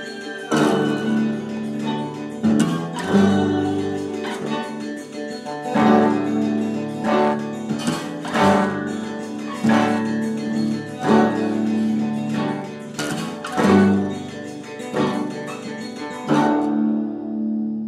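Background music: acoustic guitar strumming chords at an unhurried, steady pace, the last chord left ringing near the end.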